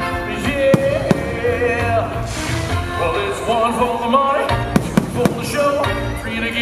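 Fireworks bursting over a loud sung rock-style soundtrack. Several sharp bangs cut through the song, with a cluster of them about five seconds in and a hissing crackle about two seconds in.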